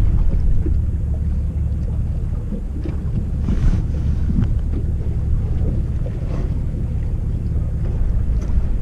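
Fishing boat at sea: a steady low rumble, likely the boat's engine running, with wind buffeting the microphone and a few faint ticks.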